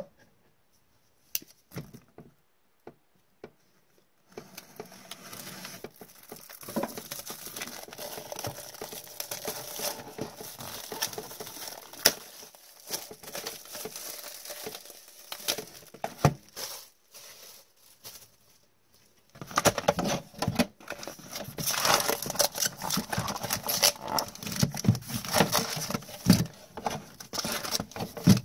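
Plastic shrink wrap being torn and crinkled off a sealed trading-card hobby box, starting about four seconds in after a few light clicks. After a short lull about two-thirds through, louder rustling follows as the box is opened and the card packs are handled.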